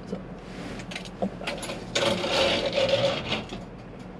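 A bank drive-thru's motorized transaction drawer runs: a few clicks and rattles, then about two seconds in a louder mechanical whir with a steady hum that lasts about a second and a half.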